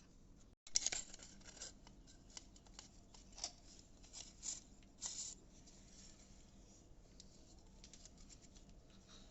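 Small hand-crafting noises: scattered scrapes and clicks of materials being cut and handled, louder about a second in and again a few times in the middle.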